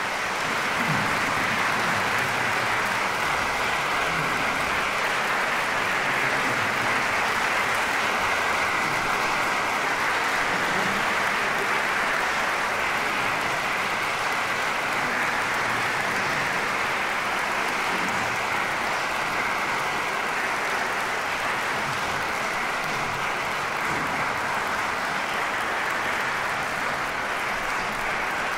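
A large concert-hall audience applauding: sustained, even clapping that sets in at once and holds steady, easing off slightly near the end.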